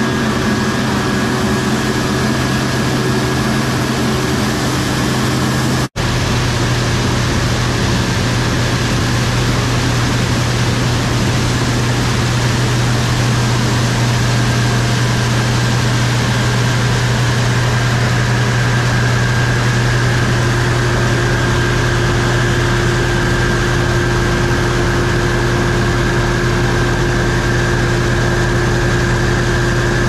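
Case IH Axial-Flow combines running steadily in the field: the diesel engine and threshing machinery make a constant deep drone with a steady high whine over it. About six seconds in, the sound breaks for an instant and switches to a second combine, a Case IH 2366 harvesting corn, running the same steady way.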